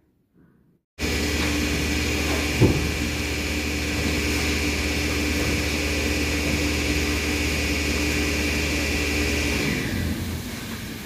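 A machine cuts in suddenly and runs steadily with a low hum and a high-pitched whine, with a single sharp knock a couple of seconds in; it dies down somewhat near the end.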